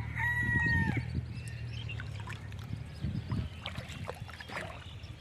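A rooster crowing, the held crow breaking off about a second in, followed by soft, irregular splashes and trickles of water.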